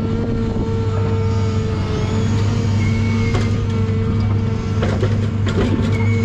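John Deere 1010G forwarder's diesel engine running steadily, with a thin high whine coming in about three seconds in and a few sharp knocks around five seconds.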